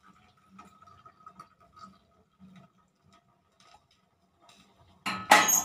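Hot milk poured into tea boiling in a steel pan, with faint ticking and popping. About five seconds in, a sudden loud metallic clatter of steel cookware.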